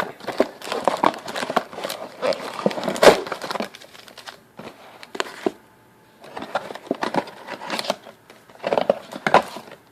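Crinkling and rustling of a sealed trading-card box being opened by hand: plastic shrink wrap torn off and cardboard handled, in irregular clicks and crackles that ease off for a couple of seconds midway.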